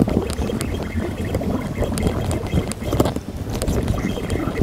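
Water lapping against a kayak hull with wind buffeting the microphone, and irregular light clicks and knocks from a baitcasting reel being cranked to bring up a hooked fish from deep water.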